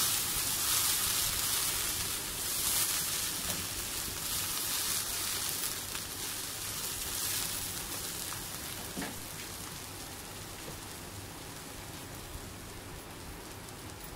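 Chopped beetroot sizzling and steaming in a hot pan as it is stirred with a spatula: a steady hiss that slowly fades, with a faint click or two from the spatula.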